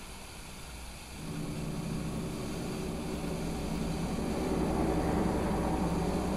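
Steady mechanical hum of an engine or motor that starts about a second in and grows slightly louder.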